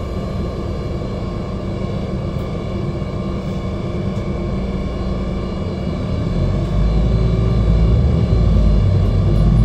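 City bus engine and road rumble heard from inside the cabin, steady at first, then growing louder and deeper about two-thirds of the way in as the bus pulls away and gathers speed.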